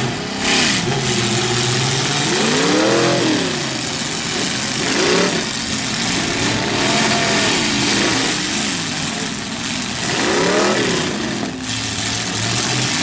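Several demolition derby cars' engines revving hard together, each rising and falling in pitch again and again as the cars push against one another.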